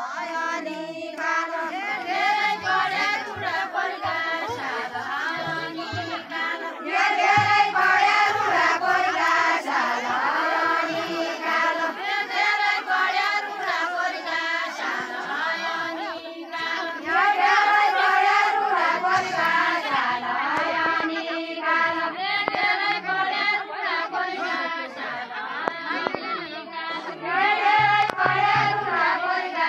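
A group of women singing a Deuda folk song together, a repeating melodic phrase that swells louder about every ten seconds.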